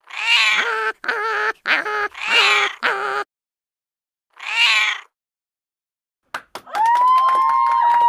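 A run of wavering, pitched animal calls, five in quick succession and then one more after a short pause. Near the end, a few clicks and then steady, held whistle-like tones begin.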